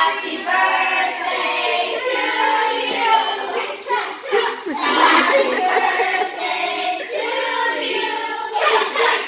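A group of children's voices singing a birthday song together in unison.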